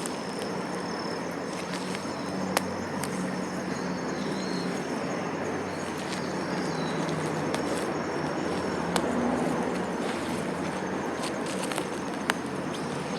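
Steady outdoor background noise with a faint low hum underneath, a few sharp clicks scattered through, and two brief faint high chirps.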